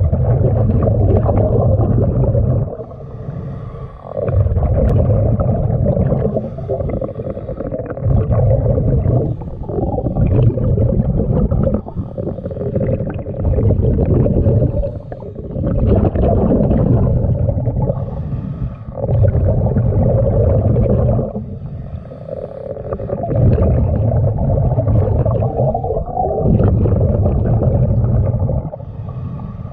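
A diver's breathing heard underwater, a rhythmic cycle of deep, bubbling rumbles that swell and fade about every three to four seconds.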